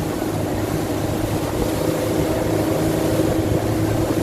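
Motorboat engine running steadily at cruising speed: a continuous low hum with a steady higher tone over it.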